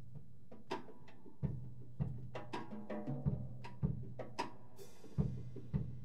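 Live chamber ensemble of violin, cellos and guitar playing a sparse passage: deep drum-like thuds at uneven gaps, with plucked notes ringing over them. A brief high swish comes just before five seconds in, and the music grows busier toward the end.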